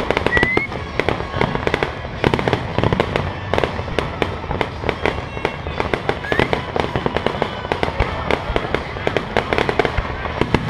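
Aerial fireworks display: a dense, continuous barrage of overlapping bangs and crackling bursts in quick succession.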